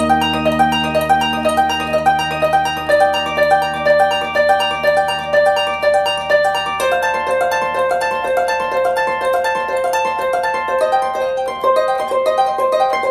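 Harp music: quick, evenly spaced plucked notes over held low notes, with a change of chord about seven seconds in.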